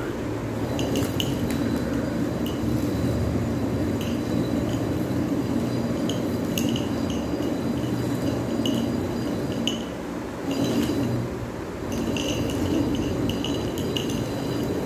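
Stone hand quern turned by its wooden handle, the upper stone grinding on the lower stone as grain is milled: a steady low rumble with irregular small clinks. The rumble eases briefly about ten seconds in, then picks up again.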